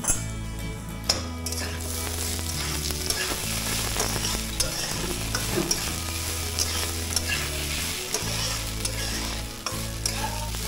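Rice sizzling as it is stir-fried in ghee and oil in a metal kadai, with a metal spatula repeatedly scraping and knocking against the pan.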